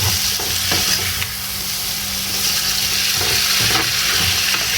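Chicken stir fry with grated tomato and garlic sizzling in a hot pan, a steady frying hiss with a few faint clicks.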